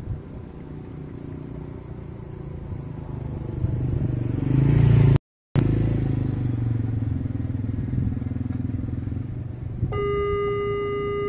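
A motorcycle engine approaches and passes close by, loudest about five seconds in, and then the sound cuts out for a moment. About ten seconds in, the railway level-crossing warning alarm starts with a steady electronic tone.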